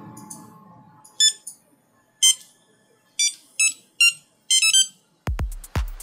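A series of short electronic beeps, like keypad button tones: about seven over four seconds, the last few in quick succession. Near the end an electronic music beat comes in, with a deep kick drum about twice a second.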